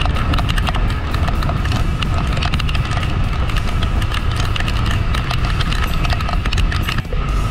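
Wind buffeting the camera of a motorcycle riding at about 70 km/h in heavy rain: a heavy, steady rumble dotted with many irregular taps of raindrops striking the camera.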